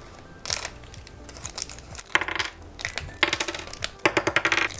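Wacky Packages minis, small hard toy replica packages, poured out of their pack and clattering onto a hard surface in several bursts of clicks.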